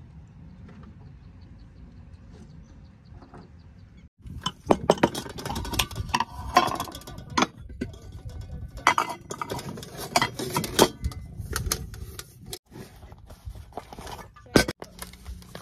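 Low background for about four seconds, then clatter: utensils knocking and rattling against an aluminium camping pot, a run of irregular sharp clicks and knocks.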